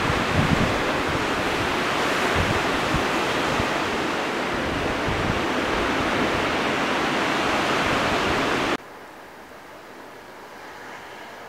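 Steady wash of Gulf surf breaking on a sandy beach, with some wind rumbling on the microphone near the start. It cuts off suddenly about nine seconds in, leaving a faint steady hiss.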